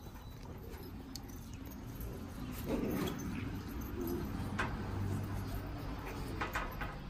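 Great Dane puppies playing and scuffling, with light clicks and jingling, and a louder scuffle about three seconds in.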